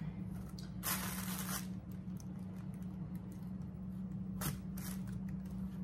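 A table knife scraping soft butter across a slice of bread, one longer scrape about a second in, then a few light clicks and handling sounds as the slices are moved. A steady low hum runs underneath.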